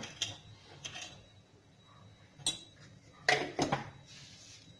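A spoon stirring a dry mixture of flattened rice and peanuts in a stainless steel pan: scraping with a few sharp knocks of the spoon against the pan, the loudest pair about three and a half seconds in.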